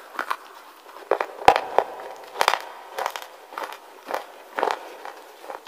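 Wet slate being chewed: a run of sharp, irregular crunches and crackles, about a dozen in all, some in quick pairs.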